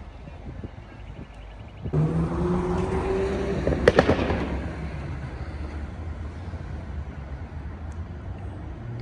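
Infiniti G37's 3.7-litre V6 pulling hard through its modified exhaust: the engine note jumps about two seconds in and climbs in pitch, then a quick cluster of sharp exhaust pops and cracks about four seconds in as the throttle comes off. It then settles back to a steady cruise.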